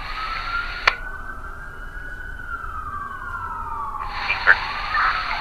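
Emergency vehicle siren wailing, its pitch slowly rising and then falling, with a hiss that swells up about four seconds in and a few sharp clicks.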